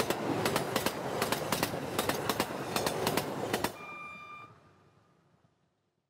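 A train passing at speed, with a quick, steady rhythm of wheel clacks over rail joints, about five a second. Near four seconds in the clacking stops, a short steady tone sounds, and the rumble fades away.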